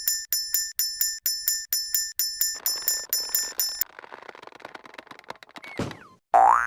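Japanese level-crossing alarm bell ringing its 'kan kan' at about two strikes a second, stopping about four seconds in. A clattering noise starts under the last strikes and fades out. Near the end a loud cartoon sound effect with sweeping pitch comes in.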